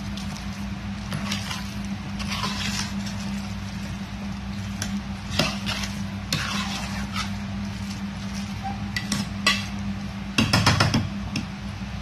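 Steel spatula stirring and scraping chicken pieces through thick fried masala in a metal pot, coating the chicken with the masala, with sharp clinks against the pot. The clinks are loudest about ten and a half seconds in, over a steady low hum.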